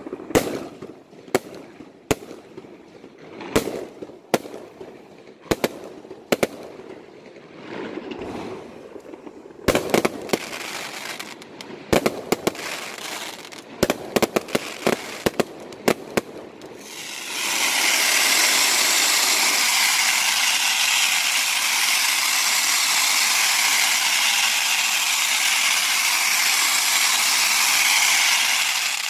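Fireworks display: aerial shells bursting in a series of separate loud bangs, with rumbling between them. A bit past halfway this gives way to a loud continuous hissing rush as a volley of white spark-trailing fireworks goes up.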